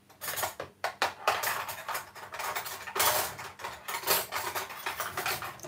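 Kitchen utensils clattering and scraping against dishware in a rapid, irregular run of clicks and scrapes.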